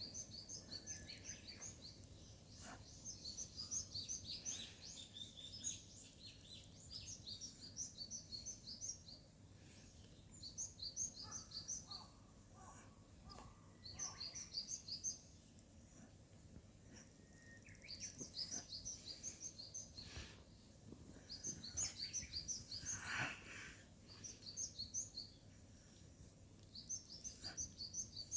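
Small songbird chirping faintly in short bursts of rapid high notes, repeated every few seconds.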